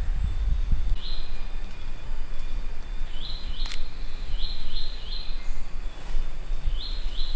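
Rainforest ambience: a steady high thin whine and short high chirps in twos and threes over a low rumble on the microphone. About halfway through comes a single sharp camera shutter click.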